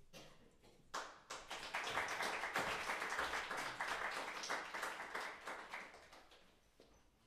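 Audience applauding, swelling about a second in and fading away near the end.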